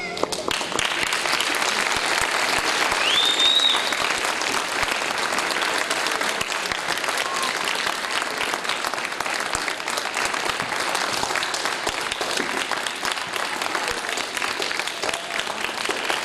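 Audience applauding steadily after a song ends, with a short rising high-pitched call about three seconds in.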